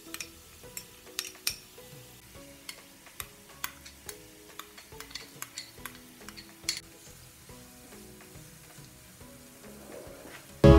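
Chopped onion, garlic and ginger sizzling softly in hot oil in a frying pan, with scattered sharp clicks and scrapes of a spoon and wooden spatula against the pan as they are added and stirred. Quiet background music plays underneath, and much louder music comes in near the end.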